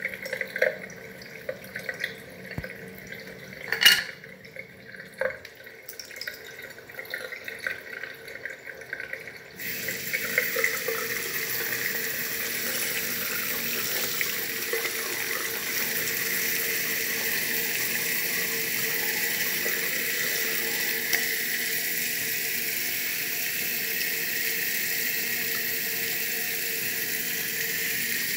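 Water from an electronic basin tap into a sink: faint trickling and a sharp knock about four seconds in, then the full flow comes on suddenly about ten seconds in and runs steadily.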